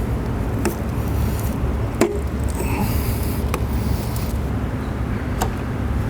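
Four sharp clicks and knocks of hand work on a motorcycle's fuel tank hoses and fuel pump connector, over a steady low rumble.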